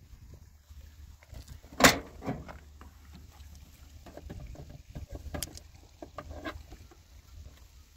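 A sharp knock about two seconds in and another a few seconds later, among scattered small clicks and knocks over a low rumble.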